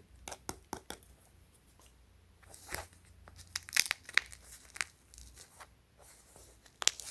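Scattered light clicks and rustles of a padded fabric-and-plastic car seat headrest being handled. Near the end comes a loud rasping rip of a Velcro hook-and-loop fastener being pulled apart.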